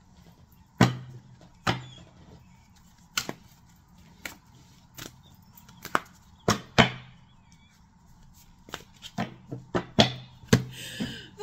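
Tarot cards being handled and laid on a table: more than a dozen sharp, irregular taps and slaps of cards and deck against the tabletop, coming closer together near the end.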